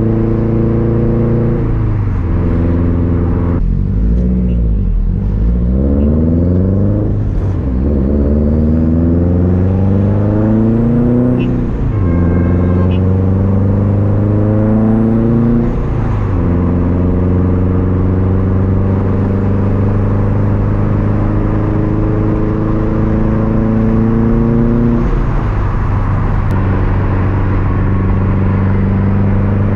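Turbocharged Subaru WRX STI flat-four engine through a loud aftermarket Tomei Expreme titanium exhaust, pulling through the gears. The revs climb and drop sharply at each shift, about four times in the first sixteen seconds, then hold steady at a cruise. There is another shift near the end, after which the revs climb again.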